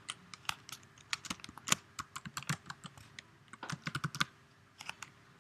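Typing on a computer keyboard: a run of quick, irregular keystrokes as a word is typed into a text field.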